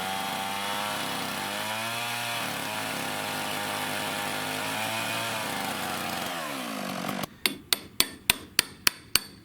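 A motorised power tool running with its pitch rising and falling, then winding down and stopping about seven seconds in. Right after, quick regular hammer blows, about three a second.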